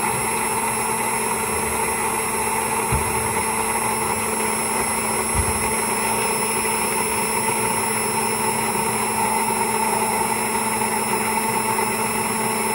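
Electric stick blender running steadily in a glass jar, whipping egg and oil into a creamy yellow mixture, with two brief low knocks about three and five and a half seconds in.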